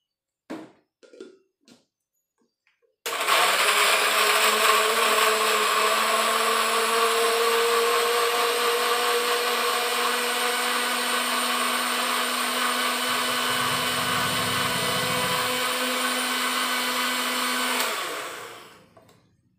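Electric countertop blender grinding tomatoes, shallots and garlic with water into a spice paste. A few short knocks come first, then the motor starts abruptly about three seconds in, runs steadily for about fifteen seconds, and winds down near the end.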